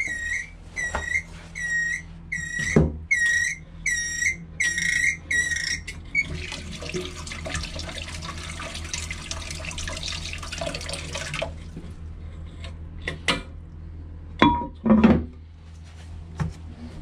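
Running toilet cistern squealing, a repeating high chirp about twice a second, like a canary being murdered. About six seconds in, the squeal gives way to a steady rush of water, which cuts off suddenly. A few sharp knocks follow near the end.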